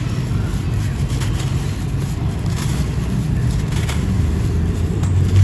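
Chunks of sand-ash texture crumbling and breaking in scattered soft crunches over a steady low rumble.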